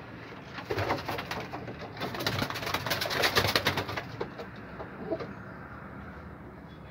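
Racing homing pigeons cooing in a wooden loft, with a louder stretch of rapid fluttering noise from about one to four seconds in.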